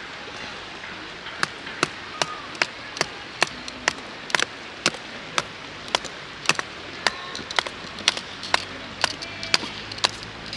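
A series of sharp knocks, about two to three a second, starting about a second and a half in, over a steady background hiss.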